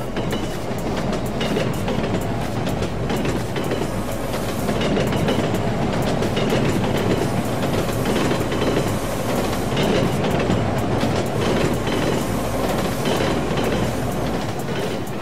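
Recorded sound effect of a full-size train running along the track, its wheels clattering steadily over the rail joints; the sound swells in the middle and eases off near the end.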